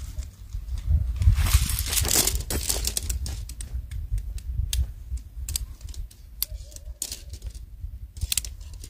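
Tent pole sections clicking into place as a shock-corded tent pole is assembled: a run of sharp, irregular clicks, after a rustle of nylon as the poles come out of their bag in the first couple of seconds.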